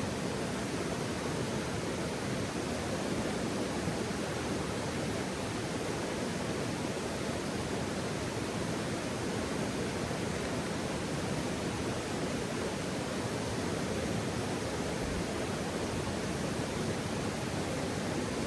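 Steady rushing outdoor ambience, an even noise strongest low down, with no distinct crackles or pops.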